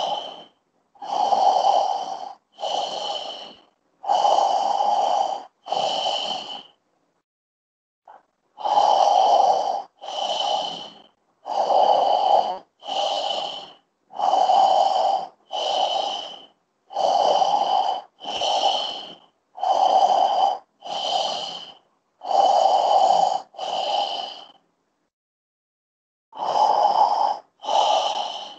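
A man breathing deeply and forcefully through a wide-open mouth as a breathing exercise. The breaths come in in-and-out pairs, each breath about a second long, with two short pauses of about two seconds.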